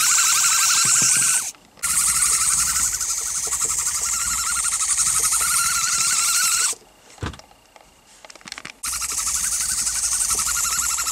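Tiny electric drive motor and gears of an ultra-micro radio-control toy duck whining steadily, with a wavering pitch. It cuts out briefly once and again for about two seconds, with a single click in the quiet gap, then starts again.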